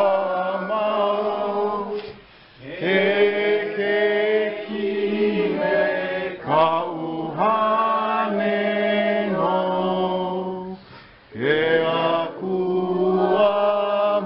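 A group of people singing a slow song together with long held notes, pausing briefly for breath about two seconds in and again about eleven seconds in.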